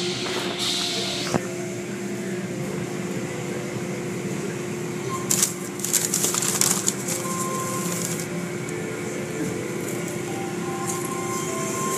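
Automatic tunnel car wash running, heard from inside the car: a steady machinery hum with water spraying and washing over the car, and a louder burst of spray hissing about five to seven seconds in.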